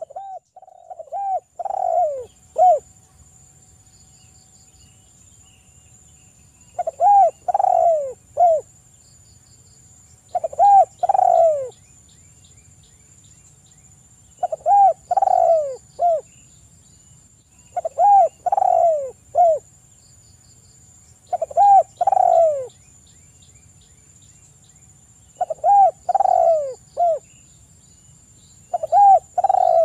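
Spotted dove cooing: a short phrase of three to five coos, each note falling in pitch, repeated eight times about every three and a half to four seconds.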